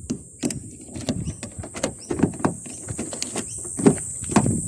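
Irregular clicks and clunks from the door locks of a 2013 Hyundai i30 as the second newly programmed key is tried.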